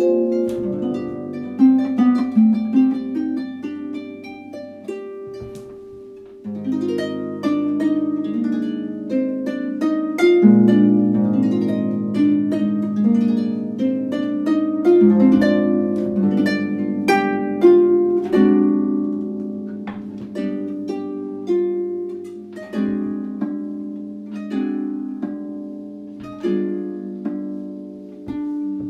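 Solo harp music played on a French Erard Gothic pedal harp: plucked notes and chords ringing and fading over low bass notes, thinning out a few seconds in before fuller bass chords come back.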